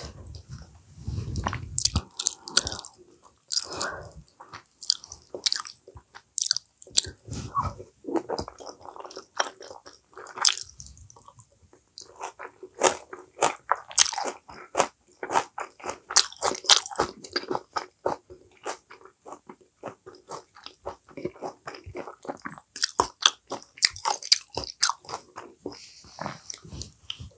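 A person chewing a mouthful of acorn-jelly salad with lettuce and raw vegetables close to a clip-on microphone: wet crunching and mouth clicks that come thickest through the middle, with a few low thuds early on.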